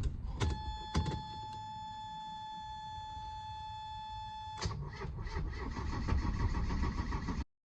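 Mercedes 240D four-cylinder diesel being cranked to start after an injector rebuild, not yet firing: the starter stops with a couple of clicks, a steady electronic-sounding tone holds for about four seconds, then cranking resumes.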